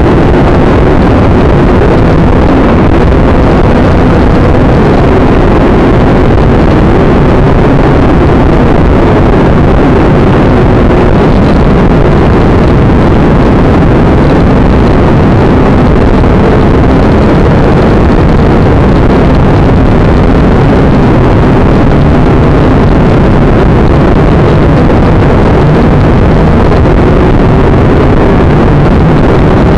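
Toy quadcopter's motors and propellers heard from its own onboard camera: a loud, steady whirring buzz whose pitch wavers slightly as the throttle changes. It overloads the tiny microphone.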